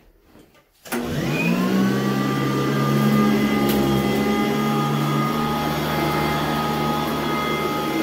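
Sanitaire SC899 commercial upright vacuum cleaner switched on about a second in, its motor spinning up with a rising whine and settling into a steady running hum.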